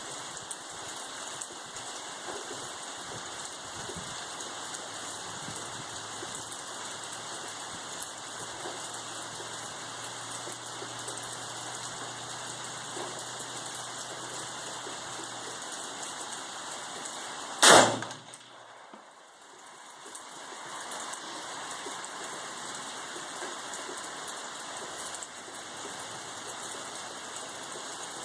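Steady rain falling, with a single loud rifle shot about two-thirds of the way through.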